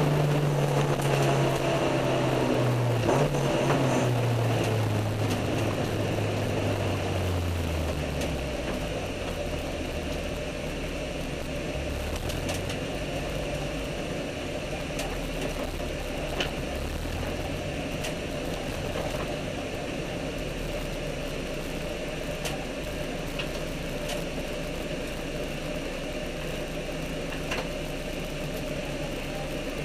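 Honda K20 inline-four with an aftermarket cat-back exhaust, heard from inside the car's cabin as the car slows. Its revs fall steadily over the first several seconds, then it runs at low revs as the car rolls slowly.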